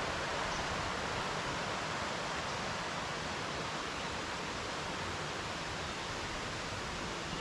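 Water of a creek rushing steadily.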